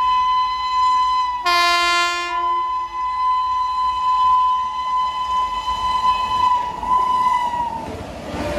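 Indian Railways electric locomotive horn sounding one long, loud blast as an express approaches at speed. A second, higher horn chord joins briefly about a second and a half in. Near the end the horn's pitch drops as the locomotive passes, giving way to the rush of the passing train.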